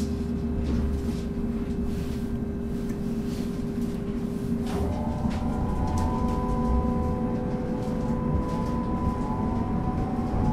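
Duewag/Kiepe B80D light-rail car heard from inside the passenger cabin: a steady low hum from its electrics and running gear. About halfway through, one steady tone stops and several higher whining tones start together, with some of them beginning to rise near the end.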